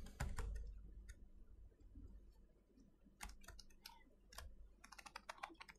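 Near silence with a few faint, scattered clicks, clustering near the end.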